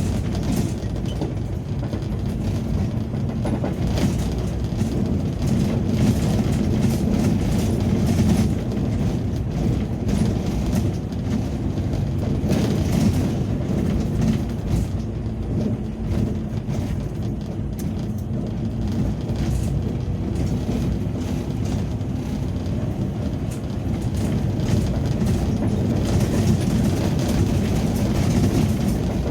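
Inside a moving ambulance: steady low engine and road rumble, with frequent rattles and knocks from driving over a rough road.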